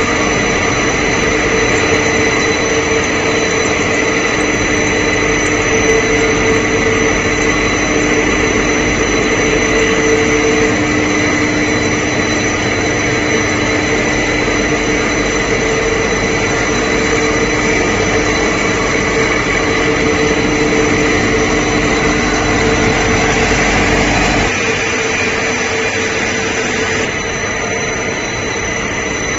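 TPE glove-film extrusion line running: a loud, steady industrial hum and hiss with several steady whining tones. About three-quarters of the way through, the low rumble and the lowest tones drop away and the rest carries on.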